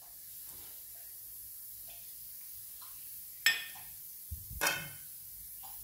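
Ghee with roasted ground coconut sizzling faintly in a metal pan as spice powders go in. Two metal clinks against the pan, about three and a half and four and a half seconds in.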